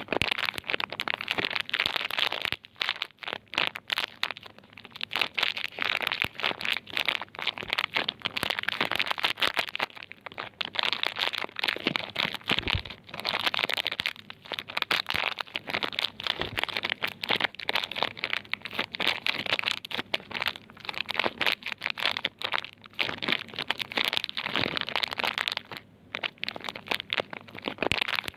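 Crinkly soap packaging being handled close up, in quick runs of crinkling and crackling with short pauses, and one low knock about halfway through.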